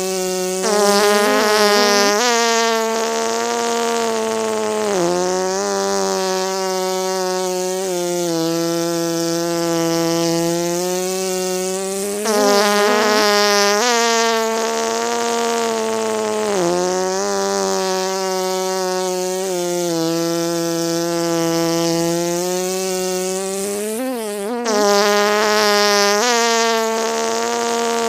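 Honey bee buzzing in one continuous, steady drone, swelling louder and dipping briefly in pitch in a pattern that repeats about every twelve seconds, as a looped sound effect.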